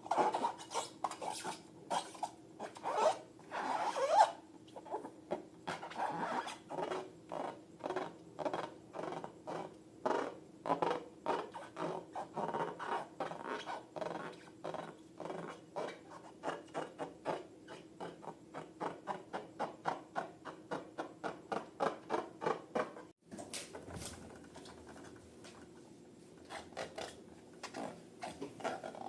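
Hands working sticky slime and rubber balloons: a quick, rhythmic run of squeaky, squelching rubbing strokes, several a second. It cuts off abruptly near the end and gives way to fainter, scattered clicks.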